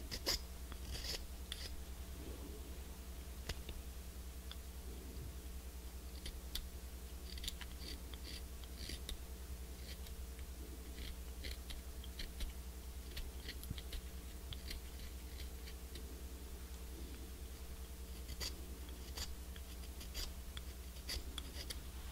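Knife blade scraping a cane clarinet reed in short, crisp strokes at irregular intervals, shaving the reed down by hand. A steady low hum runs underneath.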